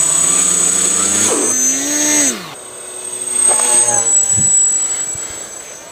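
Electric motors and propellers of an Art-Tech Wing Dragon RC plane whining, with a high electronic whine above. The pitch climbs, then drops sharply a little over two seconds in as the throttle comes off, surges briefly again about three and a half seconds in, and fades near the end.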